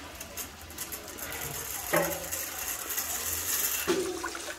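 Water is poured from a plastic bowl over elbow macaroni in a plastic colander and splashes into a concrete wash basin. Two sharp knocks of bowls against the basin, about two seconds in and near the end.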